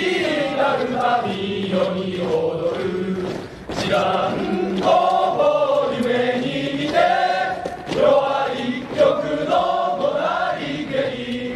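A choir of voices singing a slow Japanese patriotic song, with long held notes.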